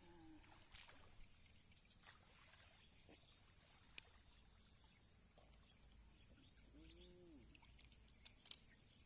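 Quiet outdoor ambience: a steady high insect drone, with a few sharp clicks, the loudest a cluster about eight and a half seconds in, and a short low rising-and-falling call about seven seconds in.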